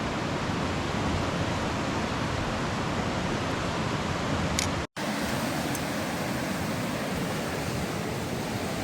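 River water rushing steadily, broken by a momentary gap about five seconds in.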